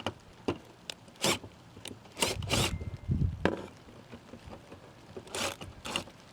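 A handful of short scraping and rubbing sounds at irregular moments, with quieter stretches between them.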